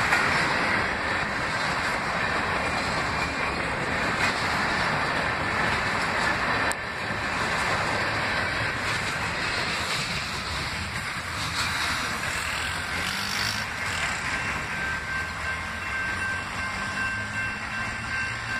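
Freight train of tank cars and gondolas rolling past at a grade crossing, a steady rumble and rattle of wheels on rail. In the last few seconds a thin, steady high-pitched wheel squeal rises over it.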